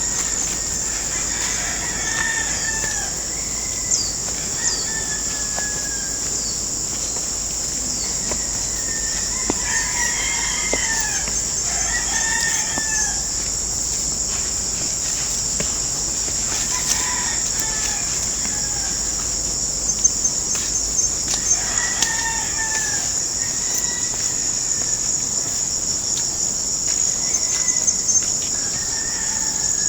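Roosters crowing again and again, calls every few seconds, some overlapping, over a steady high-pitched insect drone.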